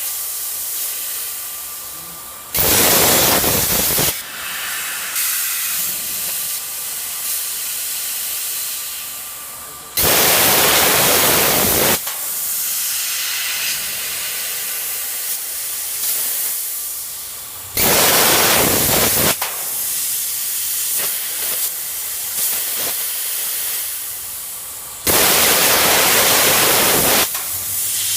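Thermal Dynamics A80 plasma cutter on a CNC cutting table: four loud spells of hissing arc cutting, each lasting about one and a half to two seconds and spaced roughly seven to eight seconds apart. A quieter steady hiss continues between them.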